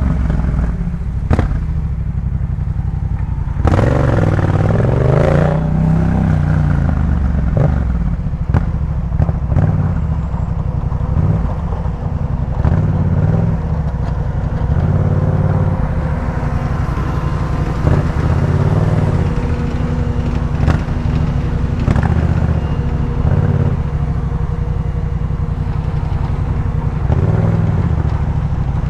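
Yamaha MT-07's 689 cc parallel-twin engine through a Jeskap K4 full aftermarket exhaust, running on the move with the revs rising and falling as the rider accelerates and rolls off. Sharp short cracks come through here and there.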